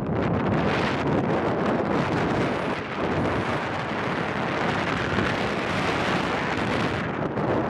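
Wind buffeting the microphone of a paraglider pilot's camera in flight: a steady rush of airflow with no let-up.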